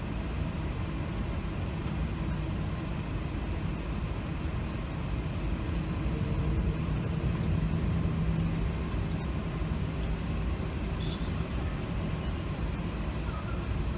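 Steady low rumble inside the cabin of an Airbus A380 on the ground before its takeoff roll, engines running at low power, with a faint hum that swells slightly midway.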